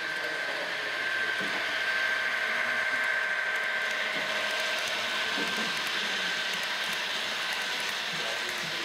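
H0 model passenger train running past on the layout's track: a steady electric-motor whine and the rumble of the wheels on the rails. It swells as the train comes close, then eases off slowly.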